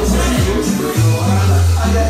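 Background music with a steady beat, kick drum about twice a second and a long held bass note from about halfway through.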